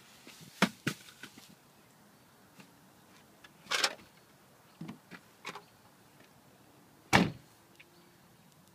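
A few sharp knocks and clatters, a short scraping rush about four seconds in, then a single loud, heavy thump about seven seconds in, like a door being shut.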